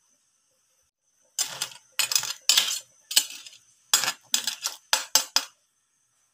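A metal cooking utensil scraping and clinking against a metal cooking pot in about eight short strokes. The strokes start about a second and a half in and stop shortly before the end.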